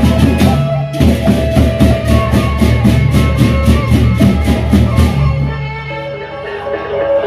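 Sasak gendang beleq ensemble playing: large barrel drums and rapid, evenly spaced cymbal clashes over ringing gongs and kettle-gong melody. A little past five seconds the drums and cymbals drop out, leaving the pitched gongs ringing.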